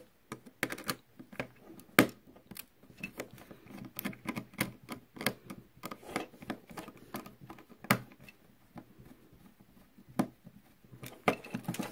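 Irregular small plastic clicks and taps from handling a Plarail toy locomotive while struggling to fit a battery into it, with sharper snaps about two seconds in and again near eight seconds.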